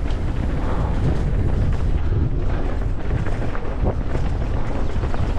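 Wind rushing over the microphone at speed, with the steady clatter and knocks of a downhill mountain bike running over rough trail.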